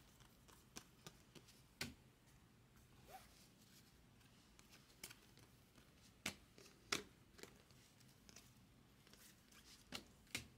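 Faint, irregular clicks and snaps of chrome-stock baseball cards being flipped one at a time off a stack held in the hands.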